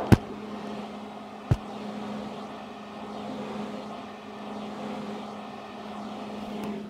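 A steady low hum under a faint, even hiss, with a single sharp knock about a second and a half in.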